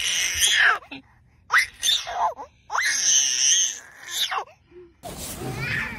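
A baby squealing and shrieking with delight: three long bursts that glide up and down in pitch. About five seconds in they stop abruptly and give way to a steady rushing background.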